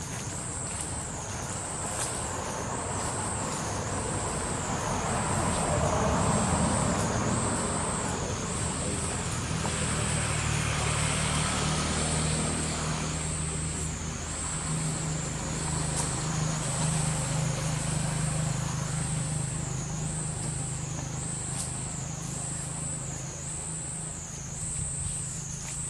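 A motor vehicle's engine runs nearby, swelling in noise around the middle and then holding a steady low hum, under a continuous high-pitched insect drone that pulses about once a second.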